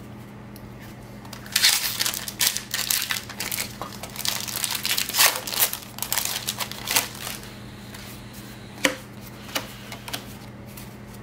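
Foil wrapper of a Magic: The Gathering booster pack crinkling and tearing as it is ripped open by hand, a run of crackling from about a second and a half in to about seven seconds. A couple of light taps follow near the end.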